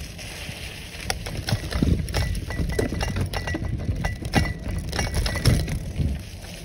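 Bicycle clattering and rattling as it rides over a rough, leaf- and root-covered dirt trail, with a quick, irregular run of knocks and clicks over a low rumble.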